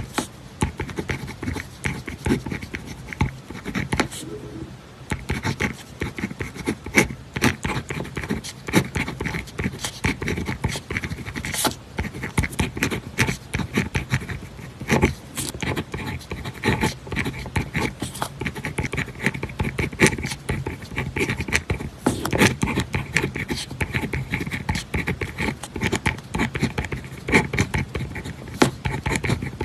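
Pen writing on paper: continuous quick scratchy strokes and small taps of the nib, with a faint steady hum underneath.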